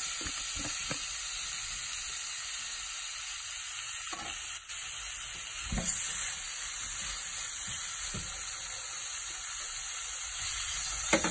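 Raw boneless chicken pieces sizzling steadily in hot oil in a nonstick frying pan. A silicone spatula stirring them adds a few short knocks and scrapes.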